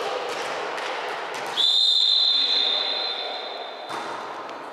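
Volleyball referee's whistle: one long steady blast of about two seconds, starting about a second and a half in, the signal for the server to serve. Before it, a murmur of voices in the sports hall.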